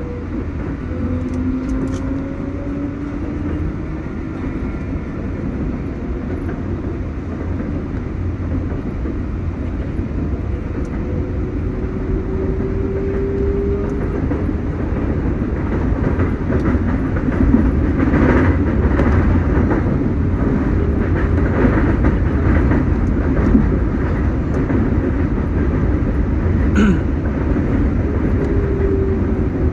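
An R188 subway train running at speed, heard on board. There is a steady rumble of wheels on rail, and the traction motors whine, gliding up and down in pitch. About two-thirds of the way in the wheels clatter and rattle more loudly for several seconds, and there is a single sharp click near the end.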